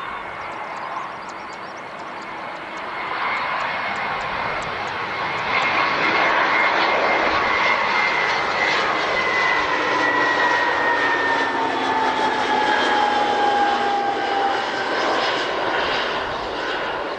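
Jet airliner passing close by: the engine noise swells over a few seconds, holds, then eases off, while the engine whine slides down in pitch as the aircraft goes past.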